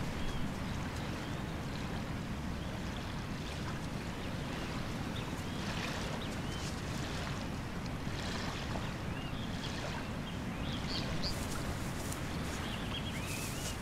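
Small waves lapping steadily at the sandy shore with a wash of wind, and faint short high bird chirps scattered throughout. From about eleven seconds in come scratchy rustles of a dog digging in the sand.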